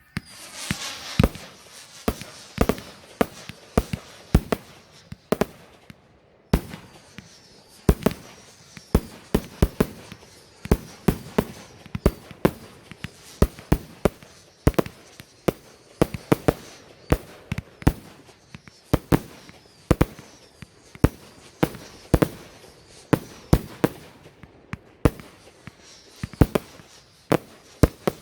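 Fireworks going off in a long, irregular string of sharp bangs, one to three a second, with crackling between them and a brief lull about six seconds in.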